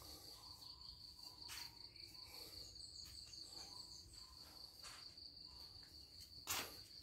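Near silence with a faint, steady, high-pitched cricket trill, and a brief knock about six and a half seconds in.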